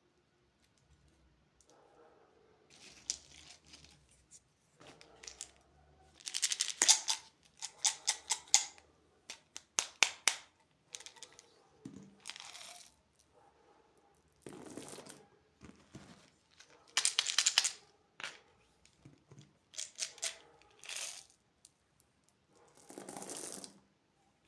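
Plastic candy packaging being handled and opened: irregular bursts of crinkling and tearing, with quick runs of sharp rattling clicks from the loose candy.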